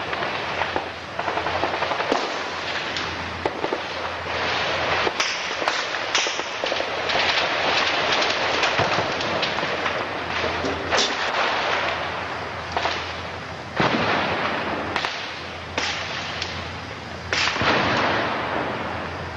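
Continuous crackle of small-arms fire in a firefight, many shots overlapping, with a few sharper, louder reports standing out, one about five seconds in and several in the second half.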